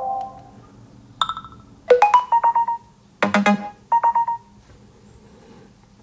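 iPhone alert-tone previews from the Alert tones list, played one after another as each tone is tapped. A chime rings out at the start, then four short chiming tones follow about a second apart, each cut off when the next one is tapped.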